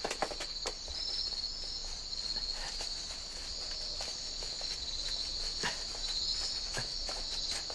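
Crickets chirring steadily in a night-time chorus, with scattered soft rustles and footsteps of people moving through tall grass.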